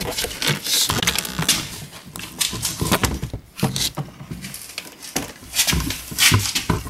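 Irregular plastic clicks, knocks and rustling as the interior door panel of an Audi A4 B6/B7 is handled and unhooked from its inner door-handle release cable, with louder clatters about a second in and near the end.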